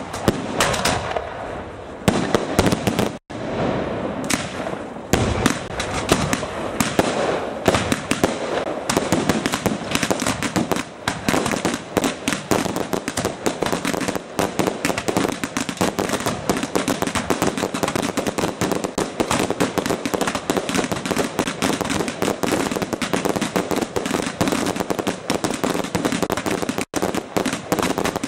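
Fireworks going off in rapid succession: sharp bangs that thicken after about eight seconds into a dense, near-continuous crackling barrage.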